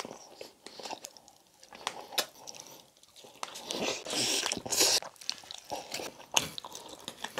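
Close-miked eating sounds of biting into and chewing braised pork belly (pork humba): many short sticky clicks and smacks, louder for a second or so just before the middle.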